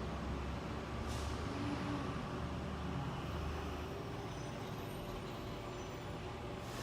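Air conditioner condenser units running with a steady mechanical hum, with a brief hiss about a second in.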